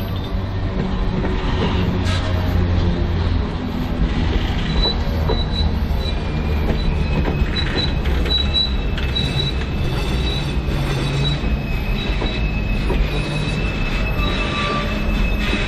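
BNSF freight train cars rolling past over a steady low rumble, their wheels squealing with thin high-pitched whines that hold on through the second half.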